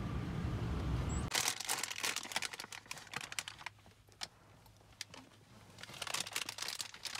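Wind rumbling on the microphone for about a second, then a crinkling plastic snack wrapper with irregular small clicks and crackles as it is handled, busiest again near the end.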